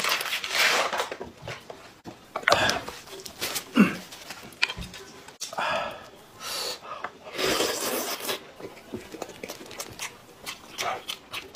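A person eating and drinking noisily into the microphone: gulps, slurps and wet smacking mouth sounds in irregular bursts, with heavy breaths between them.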